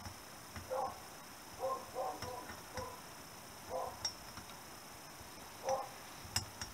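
Light metallic clicks and taps from small parts of a Honda CB125S cylinder head as a rocker and its shaft are worked into place by hand. Several brief pitched sounds come between the clicks and are louder than them.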